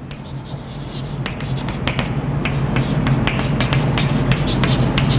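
Chalk writing on a blackboard: a quick, irregular run of sharp taps and short scratches, several a second, over a steady low hum.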